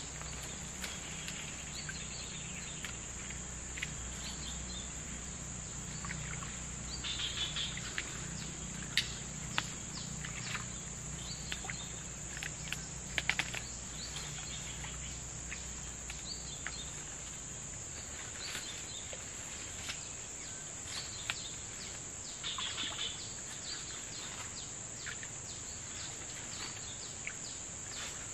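Steady high-pitched drone of insects, crickets or cicadas, with scattered short bird chirps and small clicks. A low hum underneath stops about two-thirds of the way through.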